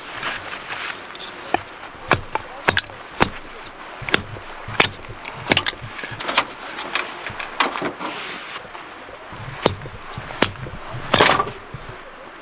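Small hatchet chopping into a short log of firewood held upright, splitting it: about a dozen sharp, irregularly spaced chops.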